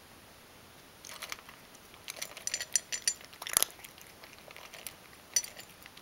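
Ragdoll cat crunching dry kibble from a stainless steel bowl: quick clusters of crisp crunches start about a second in, the loudest a little past halfway, with one more burst near the end.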